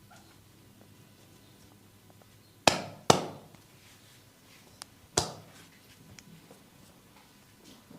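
Three loud, sharp skin-cracking snaps from a barber's hands on skin during a massage: two in quick succession, a third about two seconds later, each dying away quickly.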